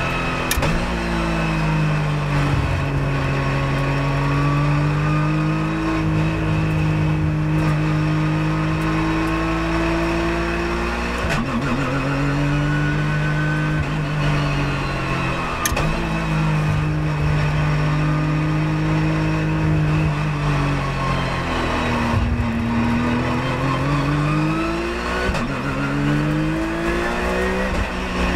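Porsche 997.1 GT3 Cup's flat-six engine at race pace, heard from inside the cockpit. The engine note climbs steadily, breaks sharply four or five times at gear changes, some with a short crack, and dips and climbs again near the end as the car slows for a corner and accelerates out.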